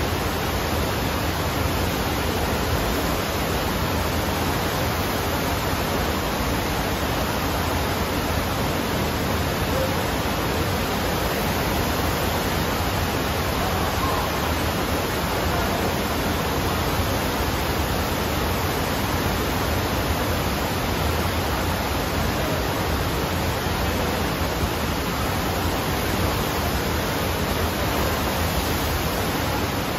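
Steady rush of pumped water sheeting fast up the padded slope of an indoor sheet-wave surf simulator.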